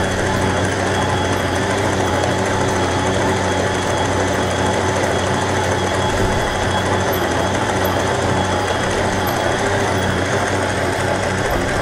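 Electric stand mixer running steadily, its dough hook kneading pizza dough in a steel bowl: an even motor hum with the churning of the dough.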